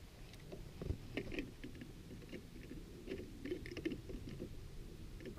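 Faint rustling with many small, scattered clicks and taps over a low wind rumble: handling noise as a metal snowmobile lift is moved about in the snow.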